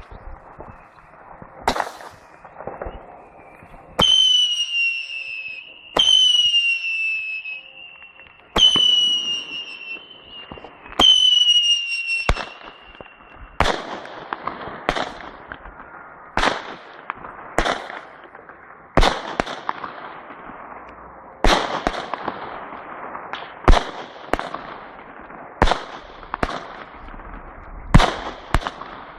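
NICO Light House 16-shot, 24 mm firework battery firing shot after shot. The first shots are each followed by a whistle falling in pitch; after that the shots come about every one to two seconds as sharp bangs, each trailing off in a hiss.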